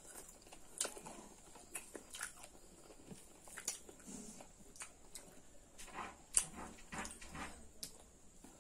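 Eating sounds of pork curry and rice: chewing with irregular wet mouth smacks and clicks, a few of them sharper than the rest.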